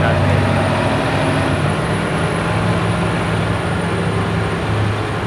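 Diesel engine of a log truck loaded with logs, running as the truck drives slowly past: a steady low drone.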